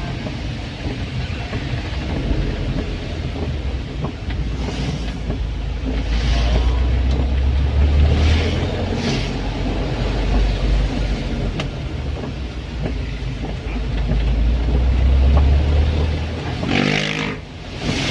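Isuzu Elf minibus driving, its engine and road noise rumbling steadily and swelling and easing in level. A few brief rushing swishes, and a louder one near the end with a tone falling in pitch.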